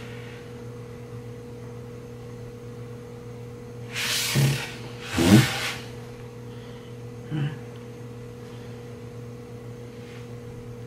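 Steady electrical hum, with two short noises about four and five seconds in and a fainter one about two seconds later.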